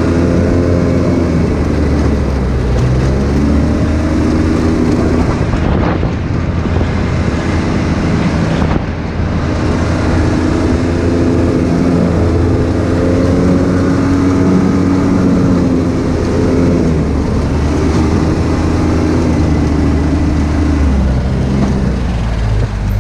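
Side-by-side UTV engine running under way on a dirt trail, its pitch rising and falling with the throttle, then easing off near the end.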